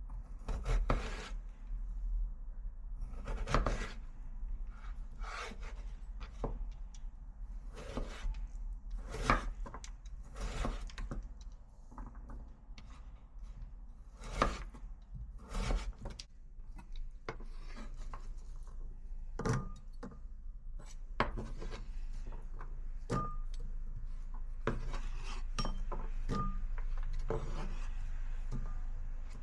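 Kitchen food-preparation sounds: scraping and rubbing on a wooden surface, broken by irregular knocks, over a steady low hum.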